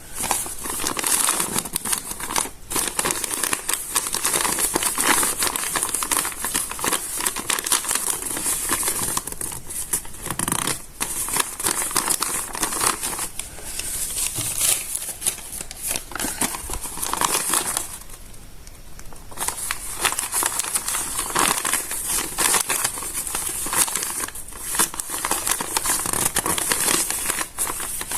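Stiff, water-damaged notebook paper crinkling and crackling as the pages are handled and smoothed, a dense run of crisp crackles that eases briefly about two-thirds of the way through before going on.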